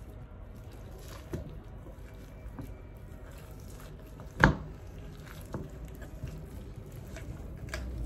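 Wet squishing of raw chicken skin being pulled off the carcass by hand, with small scattered clicks and one sharp knock about halfway through.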